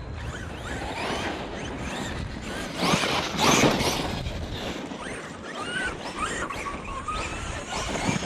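Electric RC car being driven hard, its motor whine rising and falling with the throttle, with louder bursts of noise around three seconds in and again near the end.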